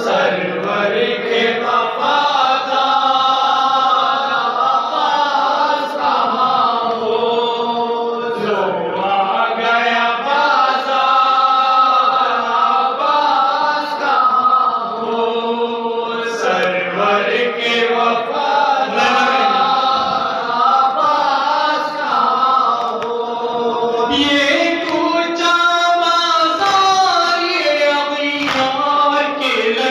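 A group of men chanting a noha, a Shia lament, through a microphone and PA: a sustained, melodic unaccompanied chant led by one reciter with others joining in.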